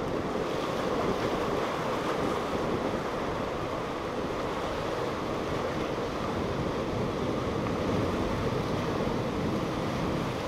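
Waves washing against jetty rocks and wind buffeting the microphone in a steady rush, with a motorboat running by at planing speed underneath.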